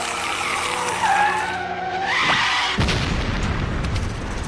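Cartoon sound effects: a wavering tyre screech as a runaway boat-car skids, then about three seconds in a sudden crash with a heavy low rumble that carries on.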